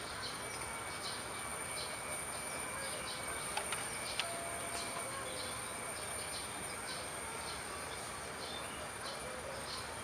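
Outdoor ambience: a short chirp repeating about every half second over a steady hiss and a thin high-pitched whine, with a couple of faint clicks near the middle.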